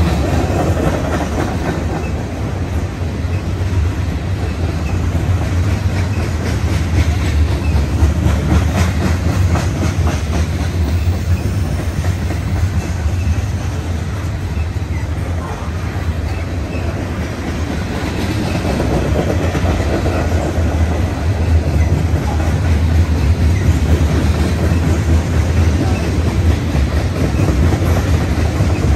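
Freight train's tank cars and covered hoppers rolling past at speed: a steady low rumble of steel wheels on rail with a clickety-clack of wheels over the rail joints.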